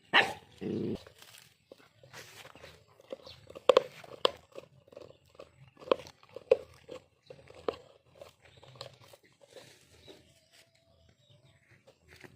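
Two dogs fighting over watermelon: a sharp bark right at the start, then a string of short, separate snaps and crunches as they bite and chew at the fruit.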